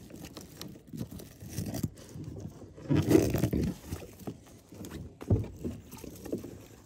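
Rope being pulled and knotted onto a D-ring of an inflatable tent's base from an inflatable kayak: irregular rubbing and scraping of the line and hands against the inflated PVC tubes, with a short knock about five seconds in.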